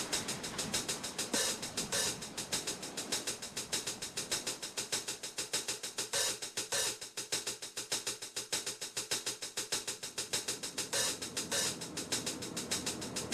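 Background music led by a drum kit: a fast, even hi-hat pattern, with louder cymbal or snare hits coming in pairs a few times.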